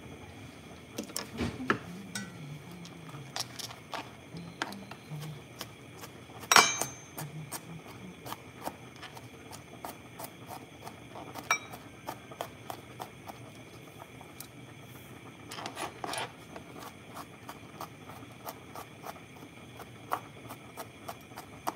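Chef's knife roughly chopping elephant garlic on a plastic cutting board: irregular knocks of the blade on the board, some in quick runs. One louder clank with a short ring comes about six and a half seconds in.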